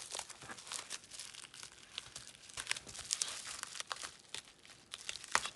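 Plastic bubble wrap crinkling and crackling under the hands as the taped bubble-wrap bag is picked at and cut open, in irregular short crackles.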